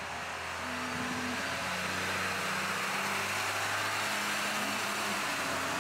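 Street traffic: a car driving past on the street, its tyre and engine noise swelling to a peak a few seconds in and easing off toward the end.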